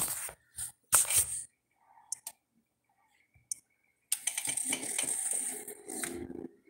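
Handling noise from a phone being moved and gripped close to its microphone. There are sharp knocks and rubs in the first second and a half, two faint ticks in the middle, then a longer stretch of rubbing and rustling for about two and a half seconds near the end.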